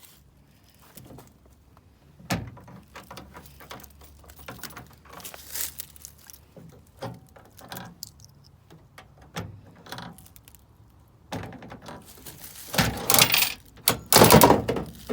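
Vending machine being handled: scattered clicks and knocks, then two louder rattling clatters near the end.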